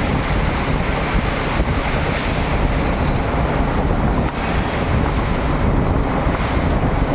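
Crane's engine running steadily, a loud continuous rumble of heavy machinery.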